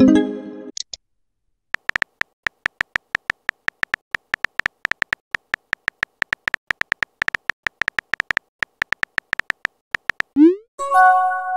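Texting-app sound effects: a short electronic chime as a message is sent. Then rapid keyboard tap clicks, about six a second, as a reply is typed out. Near the end comes a quick rising swoosh and another chime as it sends.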